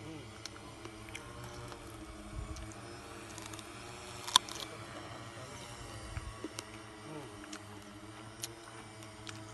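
Multirotor crop-spraying drone flying overhead, its rotors giving a steady buzz whose pitch wavers slightly. A sharp click about four seconds in, with a few fainter clicks elsewhere.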